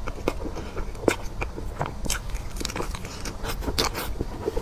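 Close-up mouth sounds of a person biting into and chewing a chocolate-coated dessert: many small, irregular crisp crunches.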